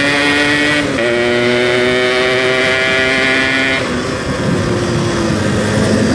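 Yamaha RX-King two-stroke motorcycle engine pulling under throttle while riding. Its pitch climbs, dips at a gear change about a second in and climbs again, then falls as the throttle eases off about four seconds in, and holds steady again near the end.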